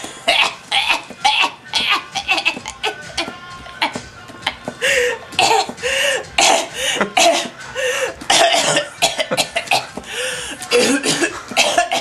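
A person coughing over and over in a long run of short, hacking coughs.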